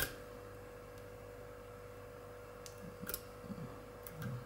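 Lock pick working the pins of a brass euro cylinder under tension: one sharp metallic click at the start, then a few fainter clicks about three seconds in. A steady hum runs underneath.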